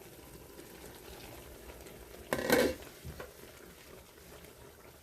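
A pot of chicken adobo, chicken thighs in vinegar and soy sauce, bubbling at a boil, with a brief loud clatter from the pot about two and a half seconds in.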